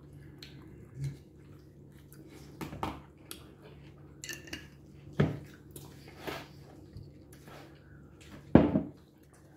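Light clinks and taps of a glass hot sauce bottle being shaken over a glass salad bowl, with two sharper knocks, about five seconds in and near the end, the second the loudest.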